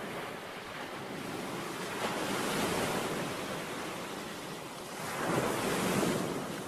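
Ocean surf breaking against a rock seawall, a steady rushing wash that swells twice, about two and a half seconds in and again near the end.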